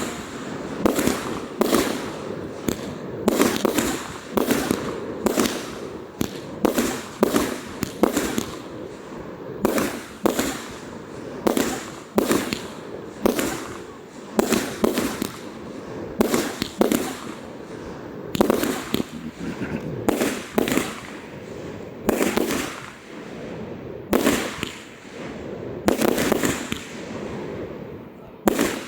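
Fireworks display: shells bursting one after another, a sharp bang about every second with no letup.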